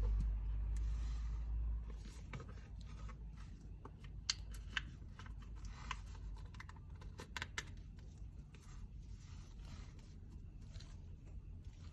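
Scattered light clicks and taps from a phone case and its packaging being handled, with a low rumble of handling in the first two seconds.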